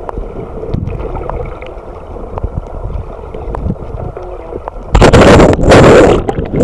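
Muffled underwater sound through a snorkeler's waterproof camera housing: a low rumble with scattered small clicks and knocks. About five seconds in, a loud rush of splashing as the camera reaches the churned water at the surface, lasting about a second.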